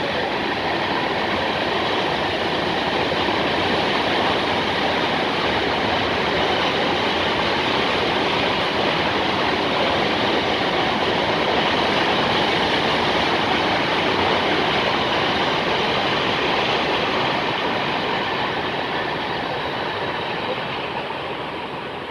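Freight train cars rolling past, a steady rumble and rattle of steel wheels on rails. The noise eases off over the last few seconds as the end of the train goes by.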